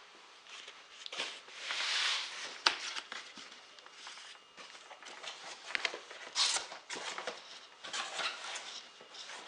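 Cardboard shipping box being opened and handled, its flaps and packing scraping and rustling in irregular bursts, with a sharp click between two and three seconds in.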